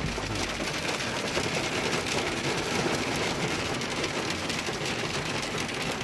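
Hail and heavy rain hitting a car's roof and windows, heard from inside the cabin: a dense, steady patter of many small impacts.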